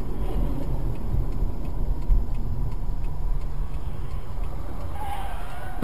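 Car driving on the road: a steady low engine and road rumble.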